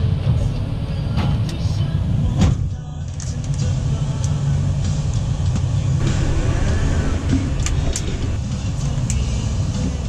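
Steady low rumble of a passenger van's engine and tyres on the road, heard from inside the cabin, with a few light clicks and rattles.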